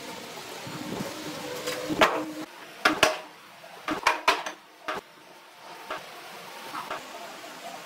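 Thick wooden boards knocking and clattering as they are set down and shifted on a wooden workbench: a series of sharp wooden clacks starting about two seconds in.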